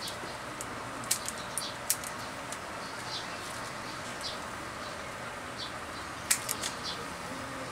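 Hand pruners snipping twigs on a red balete (Ficus virens) bonsai: a few sharp clicks, a group of three between one and two seconds in and the loudest cluster about six seconds in, over a steady hiss with short high chirps behind.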